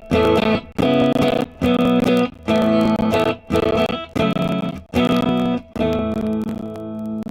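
Electric guitar played through a Mooer Solo high-gain distortion pedal: a run of loud, heavily distorted chord stabs, each about half a second long and cut off sharply. Near the end one chord is left to ring out and slowly fade.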